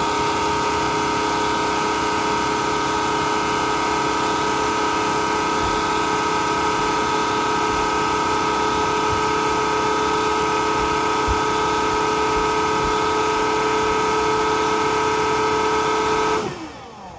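BISSELL CrossWave Cordless Max wet-dry vacuum running its self-cleaning cycle: a steady motor whine over the whir of the brush roll and water. Near the end it switches off and winds down, its pitch falling.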